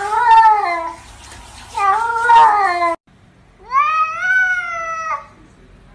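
Domestic cats meowing: two drawn-out meows with wavering pitch, then, after a sudden cut, one longer meow that rises in pitch and is held before stopping about five seconds in.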